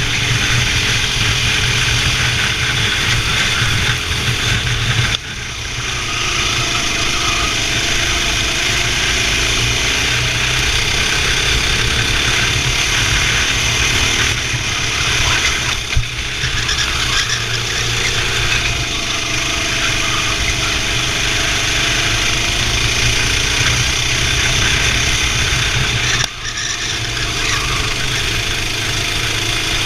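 Racing kart engine running hard, its pitch rising and falling over and over. The sound drops off sharply for a moment three times, about 5, 16 and 26 seconds in.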